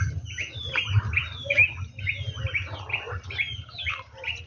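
Birds chirping without a break: a quick run of short falling chirps, about three a second, over a low rumble.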